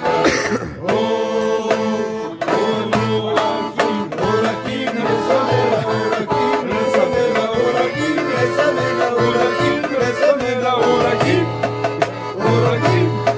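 Live folk band playing a traditional tune on two accordions and a clarinet, with a steady beat.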